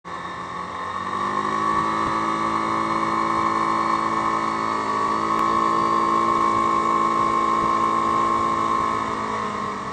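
Yamaha Grizzly 550 ATV's single-cylinder engine running under way at road speed, with a steady high whine over the engine note. It picks up in the first second or two, holds steady, and eases off shortly before the end.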